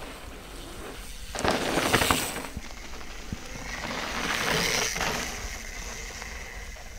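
Mountain bike riding past close by on a dry dirt trail: knobby tyres crunching over dirt and leaf litter, with crackles and clicks. It swells loudest about a second and a half in, and again around four to five seconds in.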